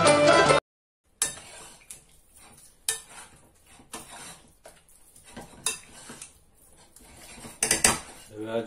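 Chicken fillets being mixed by hand in a yogurt marinade in a glass bowl: irregular clicks and knocks against the glass as the pieces are turned, with a louder cluster of clicks near the end. A snatch of music cuts off within the first second.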